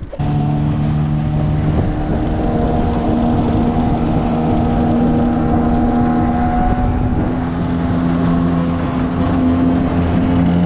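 Outboard motor of a small aluminium boat running steadily under way, with wind buffeting the microphone.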